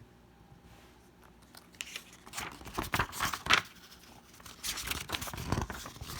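Paper pages of a picture book being handled and turned, rustling in two spells, about two seconds in and again near the end.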